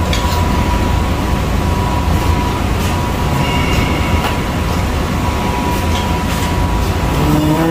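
Loud, steady rumbling noise with a constant high hum running through it, and brief higher tones about halfway through.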